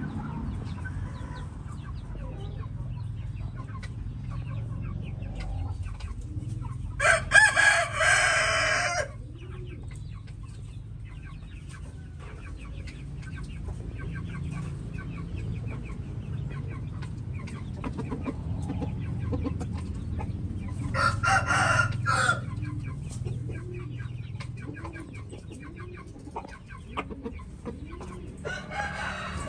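Rooster crowing three times: a loud, drawn-out crow about seven seconds in, another about twenty-one seconds in, and a third starting near the end. Fainter short calls come in between.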